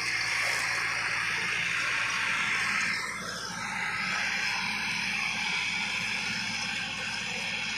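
Massey Ferguson 385 tractor's diesel engine running steadily under load as it pulls a heavy disc harrow, a low engine drone under a strong even hiss.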